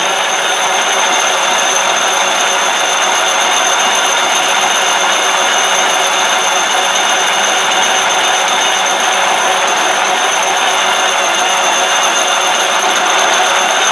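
Hardin Triad planetary concrete polisher running at steady speed, its 100-grit diamond pads grinding dry across a concrete countertop: a constant high motor whine over loud grinding noise.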